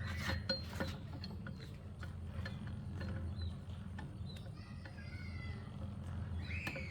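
Scattered light clicks and taps with faint short animal or bird calls over a steady low hum; one louder call near the end.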